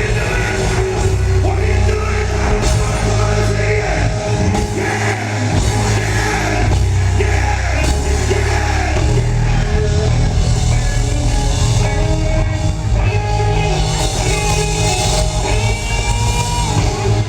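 Live R&B band playing loud through a concert PA, with a heavy bass line and a male singer's sustained, gliding vocal lines.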